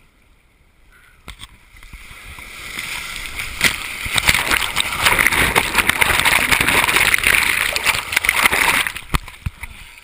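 A breaking wave and its foam washing over a camera held at the waterline: a hissing, crackling rush of surf that builds over a couple of seconds, stays loud for several seconds, then drops away abruptly near the end.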